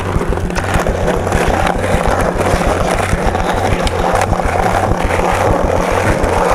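A steady, dense rumbling noise with music underneath, carried by a repeating low bass pulse.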